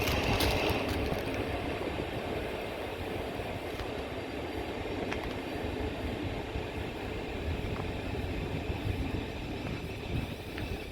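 Electric passenger train running with a steady rumble of wheels on rail; a faint high squeal dies away in the first second.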